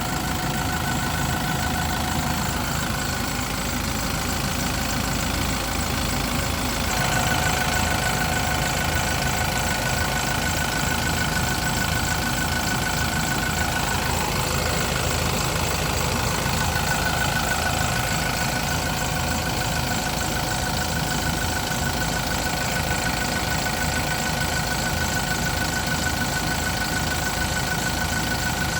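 Diesel forklift engine idling steadily, with a steady high whine over the engine note; it gets slightly louder about seven seconds in.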